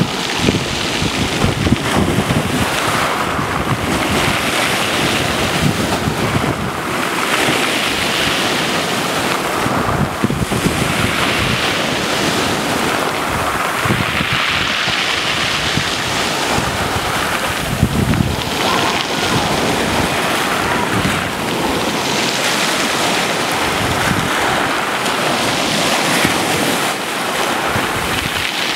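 Small sea waves breaking and washing up a pebble beach, a surging hiss that swells and falls back every few seconds.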